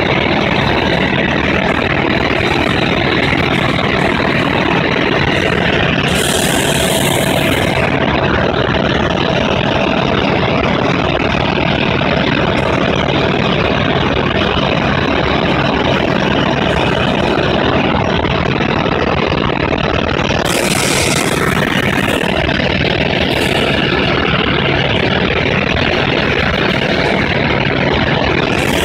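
Helicopter engine and rotor noise heard inside the cabin in flight: loud and steady, with a constant low hum. A brief hiss cuts in twice, about a quarter of the way in and again about two-thirds of the way in.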